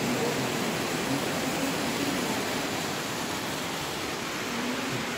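Steady, even rushing noise, with faint indistinct voices under it.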